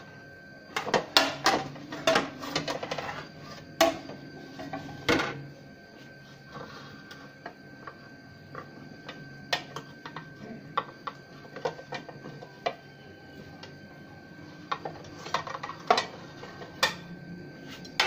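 Metal spatula scraping and clinking against a metal pizza pan as the pizza is worked loose and slid onto a plate. There is a busy run of clinks and scrapes in the first few seconds, then scattered single taps, with a few more clatters near the end.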